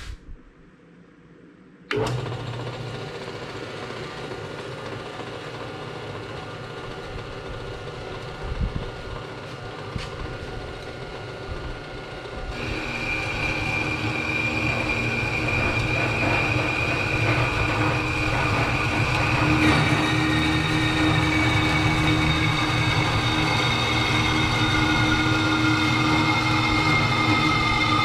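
Jet HBS-56S 5x6 horizontal metal-cutting bandsaw switched on about two seconds in, its motor and blade running steadily. About twelve seconds in it grows louder and a high steady tone joins as the blade cuts into a small piece of metal stock.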